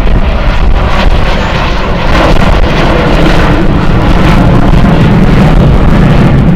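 Avro Vulcan bomber's four Olympus turbojet engines roaring overhead at full volume, a dense rushing roar with a deep rumble that swells slightly about two seconds in, with wind buffeting the microphone.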